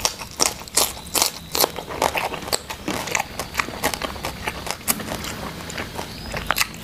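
Close-up crunching and chewing of raw cucumber, with crisp crunches about two or three times a second.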